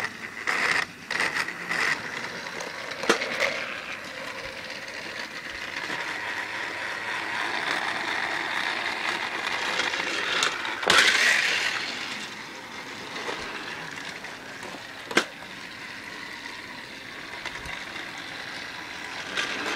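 Battery-powered TrackMaster toy engine James running along plastic track, a steady motor whir with track rattle. Sharp clicks come about 3 seconds in and again near 15 seconds, and a louder clatter about 11 seconds in.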